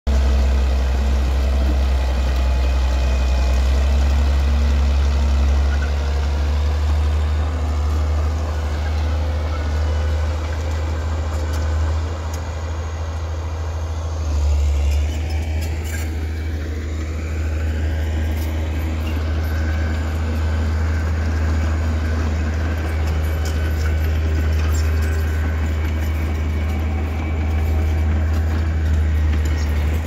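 Heavy diesel engines running steadily, from a crawler bulldozer and a dump truck working earth, with a deep continuous rumble. About halfway through, the engine note dips in pitch and rises again.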